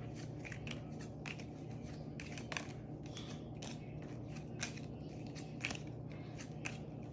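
Playing cards being handled and sorted through: faint, irregular clicks and rustles of card stock, over a steady low room hum.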